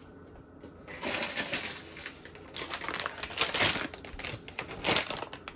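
Plastic bag of semolina crinkling and rustling in irregular bursts as it is handled, starting about a second in and loudest near the end, while another cup of semolina is measured out.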